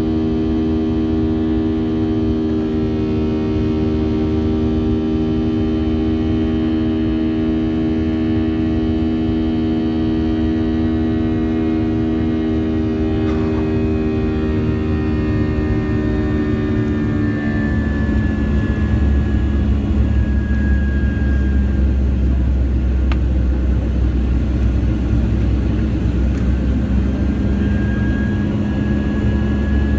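Boeing 737-800's CFM56-7B turbofan engine heard from inside the cabin during climb-out: a steady drone with a hum of several tones. A little past halfway the tones drop slightly in pitch and a deeper rumble becomes louder.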